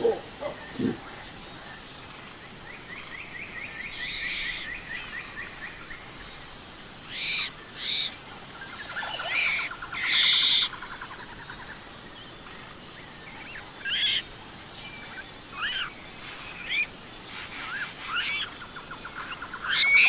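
Birds calling: two runs of rapid trilled notes, one about three seconds in and one near the middle, among scattered short sharp chirps, over a faint steady background with a high note repeating evenly.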